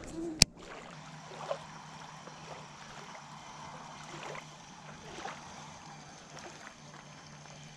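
Baitcasting reel clicking once sharply about half a second in, then faint water lapping at the shoreline with a few soft ticks.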